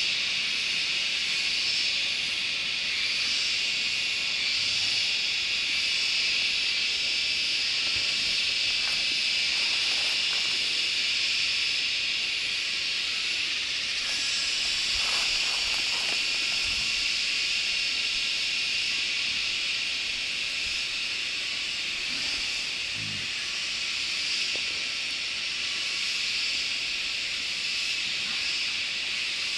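Steady high-pitched insect chorus, a dense unbroken drone with a fainter, higher, regularly pulsing tone above it.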